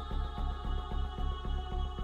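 Background music: an electronic track with a steady pulsing beat under sustained held tones.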